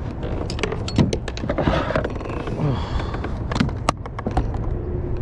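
Clicks and knocks on a kayak as a freshly caught speckled trout is handled, over a steady low rush of wind and water, with a few short low sounds falling in pitch.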